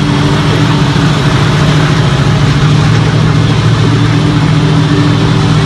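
Mud truck's engine running at a steady idle, heard up close from inside its open tube-frame cab.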